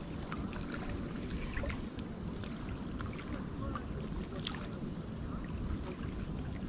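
Strong wind buffeting the microphone in a steady low rumble, with scattered faint ticks of small waves lapping at the bank.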